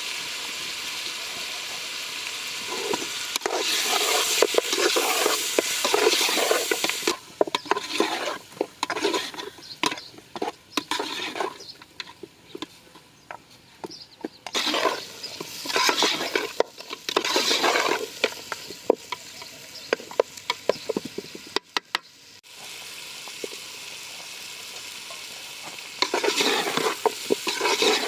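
Food frying and sizzling in a pan, stirred and scraped with a utensil in repeated bouts, with steady hissing in between.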